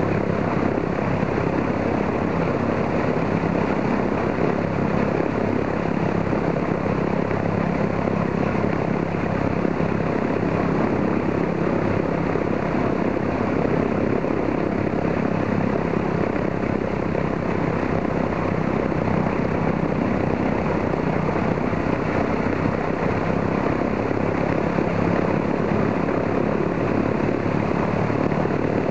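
Ilyushin Il-14's Shvetsov ASh-82T fourteen-cylinder radial engine idling steadily while it warms up, its propeller turning.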